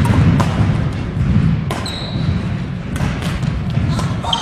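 Badminton rally in an echoing sports hall: several sharp racket hits on the shuttlecock, shoes squeaking briefly on the wooden court about two seconds in and again near the end, and footfalls over a steady low rumble of the hall.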